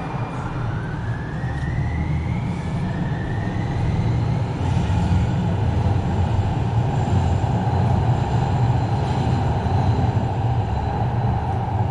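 Loud street traffic: a heavy vehicle passing close with a steady low rumble, a rising whine in the first few seconds, then a steady hum.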